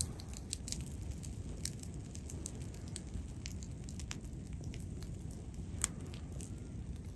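Campfire crackling: scattered sharp pops and snaps over a steady low rumble, with one louder pop about six seconds in.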